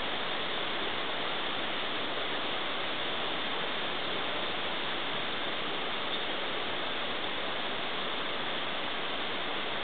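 Steady, even rushing of a river.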